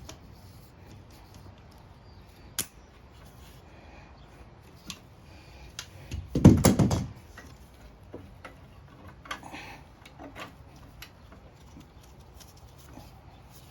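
Scattered light clicks and knocks of tools and metal parts being handled while the mower's engine is taken apart. One louder rattling knock comes about six and a half seconds in.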